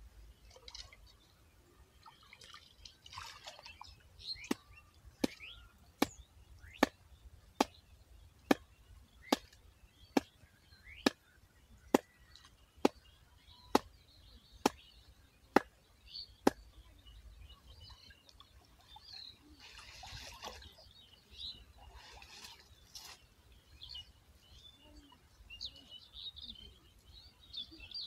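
Water sloshing and splashing as a man wades and works in a shallow pond, with birds chirping faintly. Through the middle, a run of about fifteen sharp, evenly spaced clicks comes a little faster than one a second and then stops.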